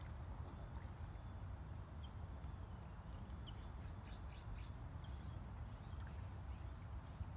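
Steady low rumble with faint, short, high-pitched wildlife chirps and calls scattered through it.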